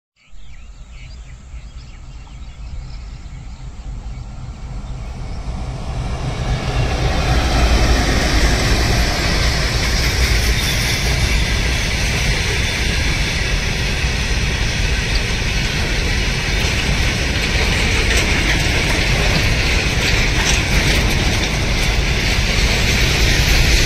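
Goods train running along the track, its rumble and rail noise growing louder over the first several seconds as it draws near, then holding steady and loud as the wagons roll by, with occasional faint clicks.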